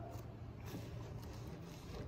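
Quiet kitchen room tone: a steady low hum with a few faint light taps.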